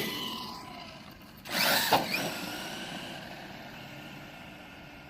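Redcat Earthquake 8E electric RC monster truck accelerating hard, a burst of rising motor whine and tyre noise about one and a half seconds in. The sound then fades away gradually.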